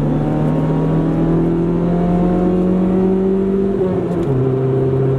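1997 Honda Civic's four-cylinder engine pulling under acceleration, heard from inside the cabin. Its pitch climbs steadily, then drops sharply about four seconds in as the manual gearbox is shifted up a gear.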